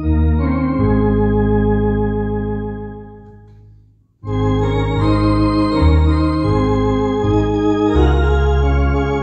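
MD-10 EVO two-manual electronic organ playing a hymn in sustained chords over low bass notes. About three seconds in the chord fades away to a moment of silence, and the playing starts again abruptly just after four seconds in.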